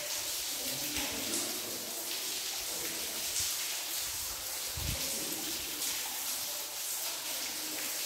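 Steady hiss of room ambience in a stone hall with faint, distant voices, and a single low bump a little before five seconds in.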